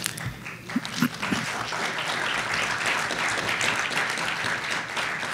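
Audience applauding, building about a second in to steady clapping.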